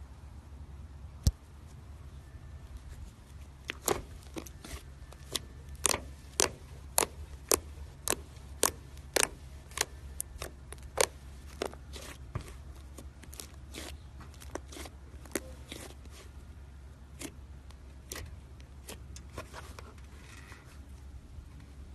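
Slime being squeezed and poked, making a run of sharp clicking pops about two a second, loudest in the middle stretch, then fainter and sparser near the end.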